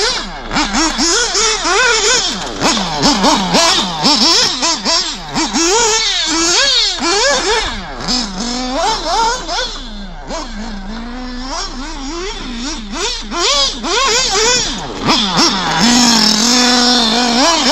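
Nitro RC buggy's FX engine revving hard and falling off again and again as the buggy accelerates and slows, its high-pitched note rising and falling. It gets fainter around the middle and holds steady high revs as the buggy passes close near the end.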